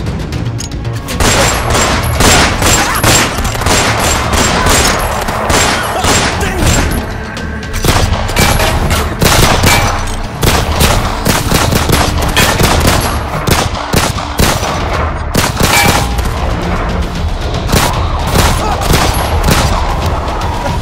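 Sustained gunfire in a shootout: dozens of shots in quick succession, beginning about a second in and continuing almost to the end. A film score plays underneath.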